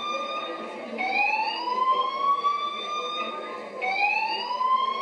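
Fire alarm sounding a repeating rising whoop tone. Each sweep climbs for about two and a half seconds and then restarts at a low pitch, once about a second in and again nearly three seconds later.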